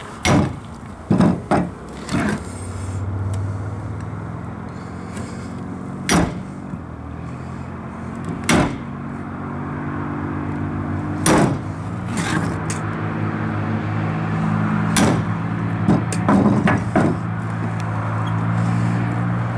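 Hammer striking the back of a hatchet set against a snapping turtle's ribs beside the backbone, cutting through the bones: about a dozen sharp knocks at uneven intervals, some in quick pairs. A steady low hum runs underneath and grows louder in the second half.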